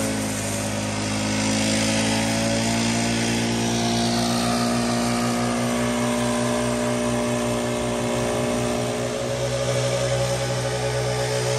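Gas-engine backpack leaf blowers running steadily at high speed, with air rushing through the nozzles; more than one engine note beats against another, and the engine sound changes about nine seconds in.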